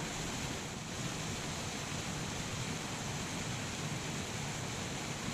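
Steady, even rushing noise outdoors with no distinct events, the kind made by moving water or wind.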